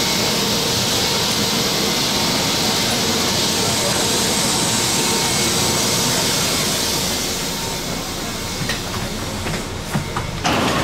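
Fukuoka City Subway train heard from inside the car: a steady, loud rushing noise that eases off about seven seconds in, with a few clicks near the end.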